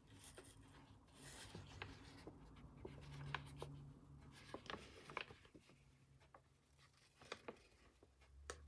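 Faint rustling and soft clicks of crumpled brown packaging paper being handled and moved, close to silence.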